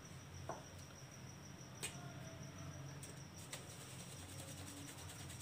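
Quiet handling sounds: a few soft clicks and taps as a small plastic basket scoops flour from a glass dish. Under them run a steady faint high-pitched whine and a low hum.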